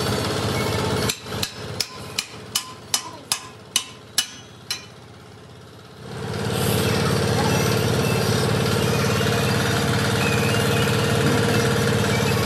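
A steady machine running cuts out, then about ten sharp hammer blows on metal land a little under three a second; after a short lull a machine starts again and runs steadily with a constant hum.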